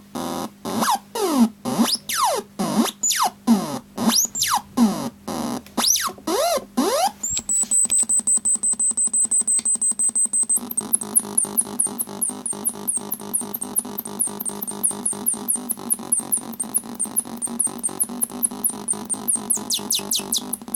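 Circuit-bent alarm clock's square-wave alarm output through a small 8-ohm test speaker, glitching out. For the first seven seconds a fast stuttering beep sweeps down and up in pitch in long glides. Then comes a steady high whine over a rapid buzzing pulse, and after a few seconds more, rapid pulsing chirps.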